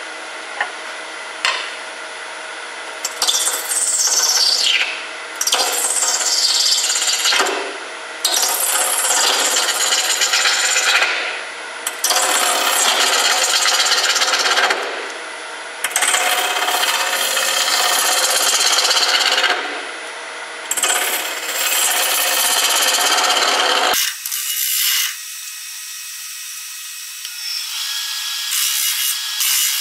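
Wood lathe running steadily while a carbide cutter hollows a spinning walnut bowl blank. The tool scrapes and shaves in repeated passes of a few seconds each, with short pauses between them.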